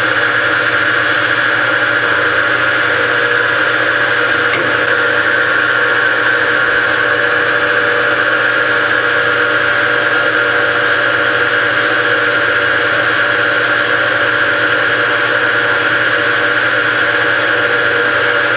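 Rambold turret lathe running with a steady mechanical whine from its motor and spindle while a turret-mounted drill feeds into the end of a spinning brass bar.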